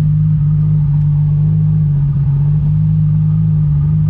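Car engine idling, a steady low drone with no change in pitch.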